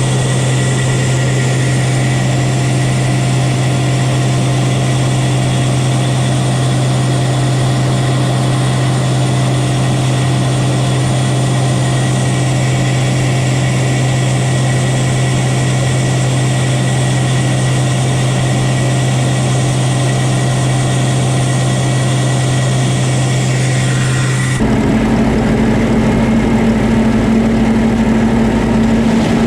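Heavy farm machinery engine running steadily with a constant low drone. About 25 seconds in it cuts abruptly to a different, slightly louder engine sound with a higher hum.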